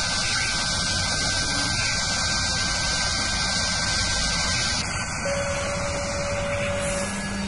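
Sound-effect of a machine drill boring into metal: a steady whirring hiss with a thin high whine over it, and a lower hum joining about five seconds in.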